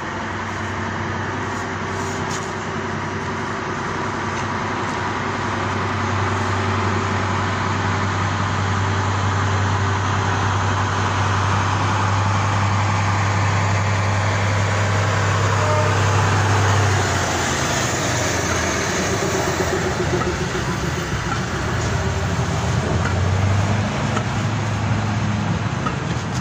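Steam-hauled train of vintage passenger carriages running slowly past on the track, growing louder as it draws close. A steady low hum runs under it, and a higher pitch falls as the train comes level.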